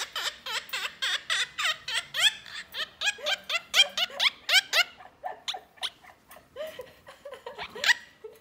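Monk parakeet imitating human laughter: a rapid run of 'ha ha ha' notes, about four or five a second, that thins out after about five seconds, with one loud note near the end.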